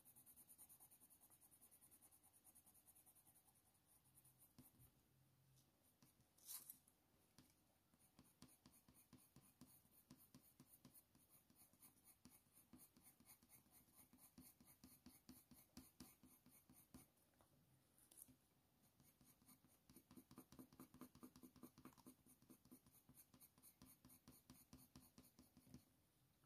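Faint scratching of a Faber-Castell Polychromos coloured pencil on hot-press watercolour paper, in quick, short strokes that are busiest about twenty seconds in.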